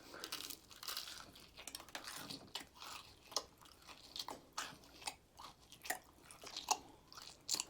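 A person biting into and chewing crispy fried chicken close to the microphone. Irregular crunches and wet mouth sounds come every fraction of a second.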